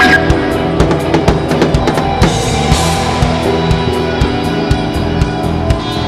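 Live rock band playing, the drum kit to the fore: a steady beat of bass drum and snare hits with a cymbal crash wash about two seconds in, under electric guitars.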